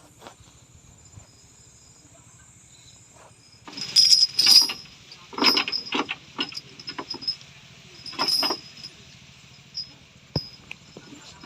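A truck engine idling low with insects trilling, then from about four seconds in a run of loud, irregular clanks and rattles, the loudest at first.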